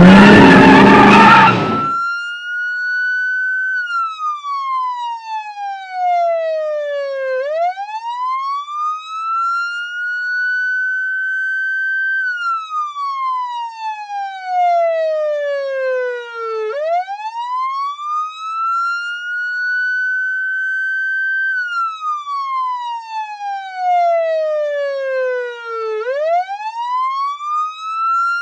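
Police car siren sounding the end of the countdown in the slow wail pattern. It rises to a high pitch, holds, then slides slowly down, repeating about every nine seconds. It is preceded in the first two seconds by a loud, noisy burst with a rising tone.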